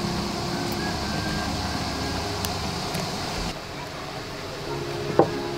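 Steady background noise, with a single sharp knock near the end.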